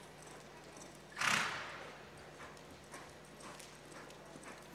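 Faint, fairly regular hoofbeats of a Quarter Horse loping on soft arena dirt, with a short loud rush of noise about a second in that fades within half a second.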